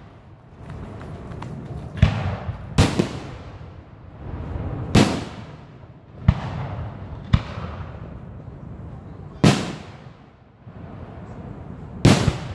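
Aerial firework shells bursting overhead at a public display: about seven sharp booms spaced one to two and a half seconds apart, each trailing off in a rolling echo.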